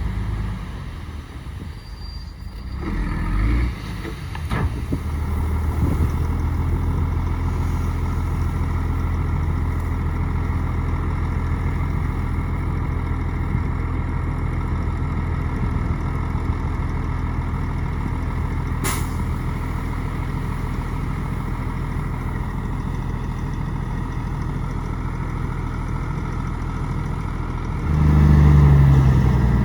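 Heavy diesel engine of earthmoving machinery running steadily, with a louder surge near the end. There is a single sharp click about two-thirds of the way through.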